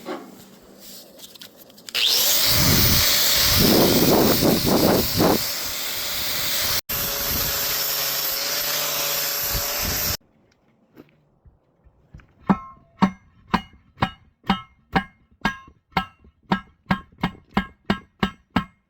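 A power tool cuts steel for about eight seconds and stops abruptly. About two seconds later a heavy homemade steel post pounder begins striking, a run of sharp metal impacts about two to three a second.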